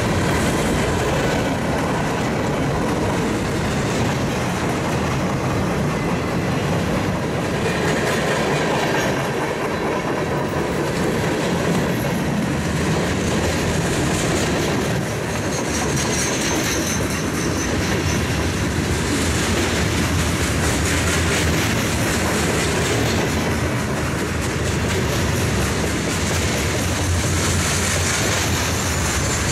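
Freight cars rolling past at speed: steel wheels clattering steadily over the rail joints. A faint high wheel squeal comes through twice, about halfway through and near the end.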